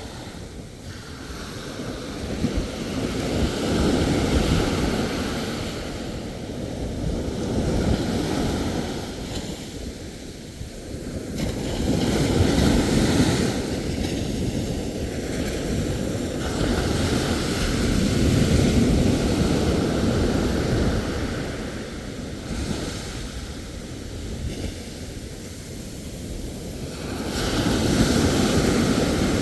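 Ocean surf: waves breaking and washing up, the rushing noise rising and falling every few seconds.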